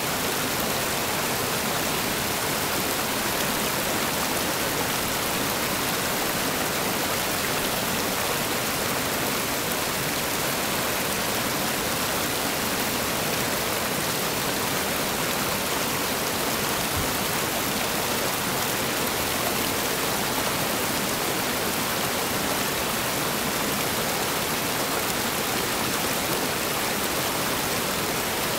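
Whitewater rapids rushing over and around boulders, a steady, unbroken roar of water.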